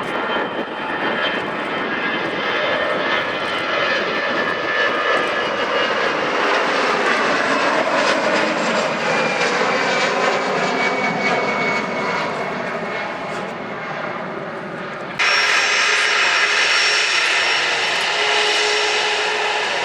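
Airliner jet engines going past, a steady roar whose whine falls in pitch as the aircraft passes. About 15 seconds in the sound changes abruptly to a louder, steady engine roar with a high whine.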